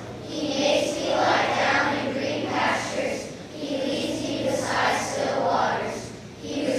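Children's choir singing together in unison phrases, with brief pauses between lines.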